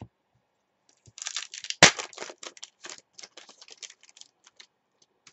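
Trading-card pack wrapper being torn open and crinkled by hand: a sharp rip about two seconds in, amid a run of crackles that thin out towards the end.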